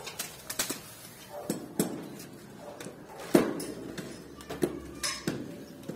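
Green beans being picked by hand from the vine: irregular rustles of leaves and crisp snaps of pods breaking off, the loudest snap about three and a half seconds in.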